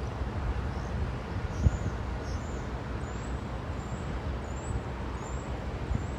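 Wind rumbling and buffeting on the microphone, with a faint high chirp, likely a bird, repeating about twice a second from about halfway through.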